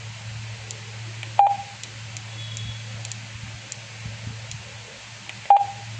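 Two short electronic key beeps from a QYT KT5000 VHF/UHF mobile radio as its front-panel buttons are pressed, about four seconds apart. Each beep is one clear tone, and they sit over a steady low hum with faint button clicks.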